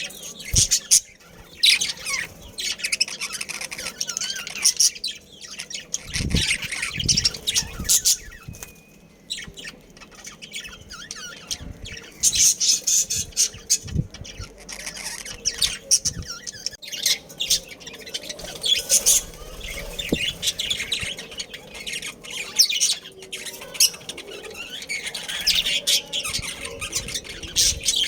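Budgerigars chirping, chattering and squawking continuously in busy bursts, with a few brief low thumps.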